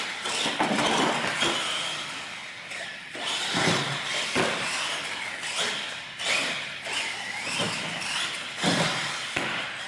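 R/C monster truck's motor and gears whining, the pitch rising and falling as the throttle is worked, with tyre noise and a few knocks as it runs over the ramps and floor.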